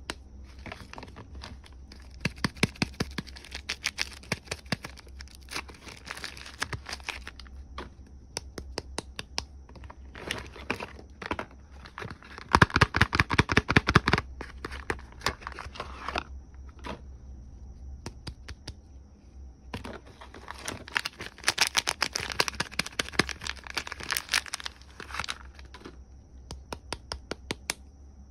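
Soap packaging being torn open and crinkled by hand, in bursts of dense crackling with short pauses, loudest about halfway through.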